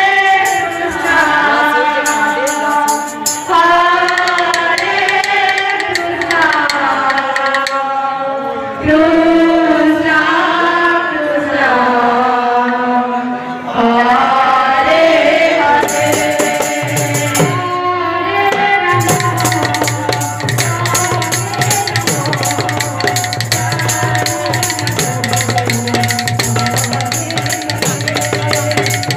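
A woman sings a devotional kirtan melody through a microphone, with long ornamented glides. About halfway through, a hand drum and jingling metal percussion strike up a fast, even rhythm over a steady low tone.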